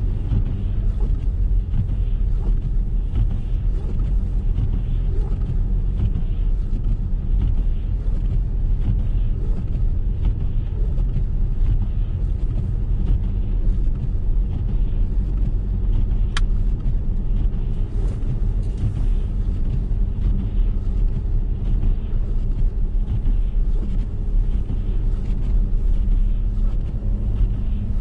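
Steady low rumble of a car driving on a snowy mountain road, its engine and tyre noise heard from inside the cabin. A single sharp click sounds about two-thirds of the way through.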